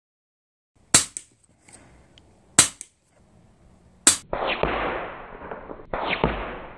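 Uragan Compact .177 PCP bullpup air rifle firing three shots about a second and a half apart, each a sharp crack. After the third comes a duller rushing noise with one softer hit in it near the end.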